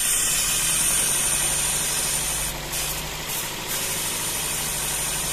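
Toyota Vios four-cylinder engine idling, with a steady loud hiss of air being sucked in through disconnected vacuum lines. The idle has smoothed out but runs high.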